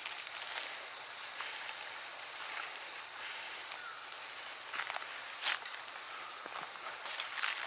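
Quiet outdoor ambience with a steady high-pitched whine, a few light clicks about two-thirds of the way through, and soft rustling.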